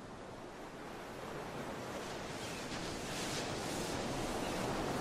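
Ocean surf washing onto the shore, fading in and growing steadily louder, with a wave surging about three seconds in.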